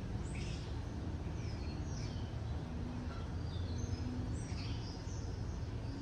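Small birds chirping several times, short quick calls, over a steady low rumble.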